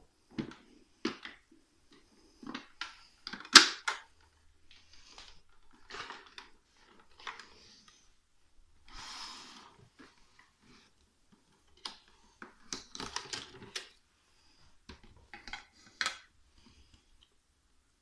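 Plastic housing of a Toshiba VC-222 canister vacuum cleaner being handled while switched off: a scatter of clicks, knocks and rattles as its cover is opened and the plastic filter frame is lifted out. The sharpest click comes about three and a half seconds in, and there is a short rustle around nine seconds.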